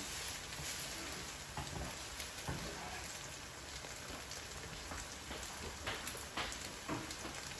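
Pork-and-tofu sisig with egg sizzling in a frying pan on a gas stove: a steady frying hiss with a few scattered pops and crackles.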